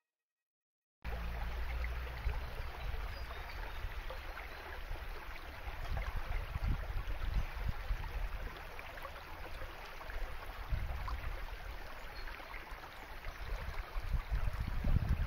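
Shallow stream rushing over stones, starting suddenly about a second in, with an uneven low rumble underneath.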